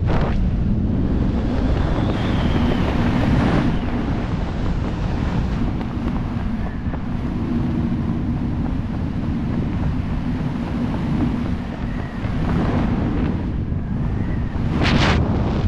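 Wind rushing over the camera microphone during a parachute canopy descent, a steady rush that swells and eases, with a brief sharper, louder gust near the end.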